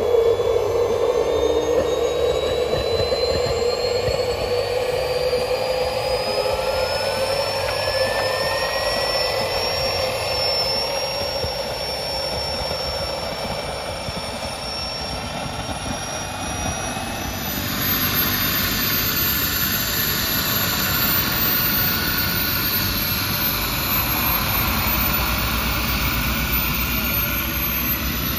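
Kingtech K45 model turboprop turbine on an RC Pilatus PC-6 Porter running, its whine rising in pitch over the first ten seconds or so and then holding steady. About two-thirds of the way in the sound changes to a higher, wavering whine with more hiss.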